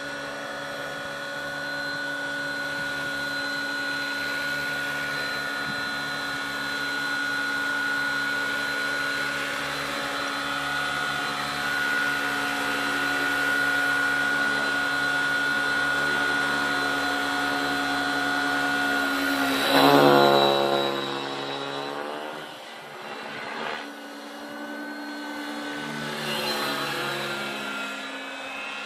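Align T-Rex 550 DFC electric RC helicopter in flight: the steady whine of its motor and spinning rotors. About two-thirds of the way in it swells to its loudest, with a sweeping change in tone as it passes close, followed by two smaller sweeps.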